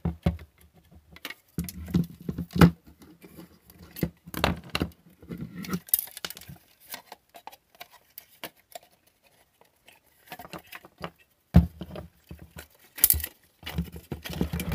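Irregular clicks, scrapes and light knocks of a milk frother being worked apart by hand, its stainless steel housing, plastic base and wiring shifted and wriggled to free the circuit board.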